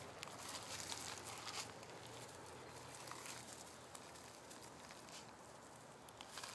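Faint footsteps and rustling through dry grass and weeds, with scattered light crackles at irregular intervals.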